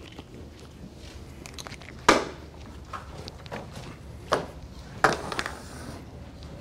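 Scattered knocks and clicks from people moving and handling things in a classroom, with three sharper knocks about two, four and five seconds in, over a steady low room hum.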